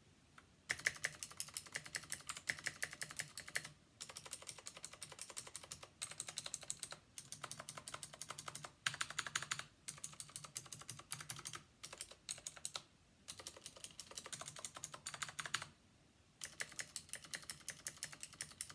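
Fast typing on a full-size mechanical keyboard with clicky Outemu Blue switches: runs of rapid key clicks lasting a second or three, broken by short pauses. The keyboard's stabilizers have just been lubed with dielectric grease.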